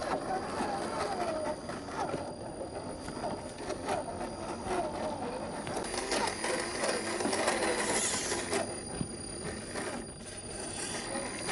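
Electric motor and gearbox of a 1/10 scale RC crawler whining, the pitch rising and falling as the throttle is worked, with scattered light clicks and knocks from the truck crawling over rough ground.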